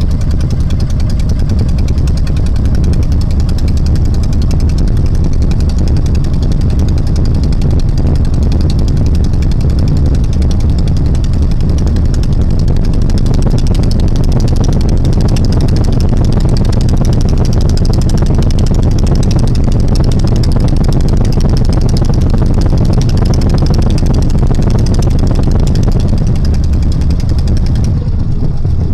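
A small fishing boat's engine running steadily and loudly at an even speed, with a deep, fast chug.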